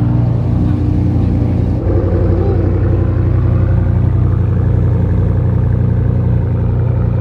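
Ram pickup truck's V8 engine idling steadily, a deep even note heard toward the dual exhaust tips. The owner reckons it at about 400 horsepower.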